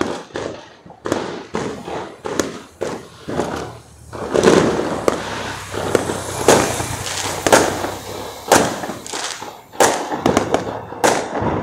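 Fireworks and firecrackers going off in a dense barrage: overlapping sharp bangs and pops over a continuous crackle, thickest around the middle.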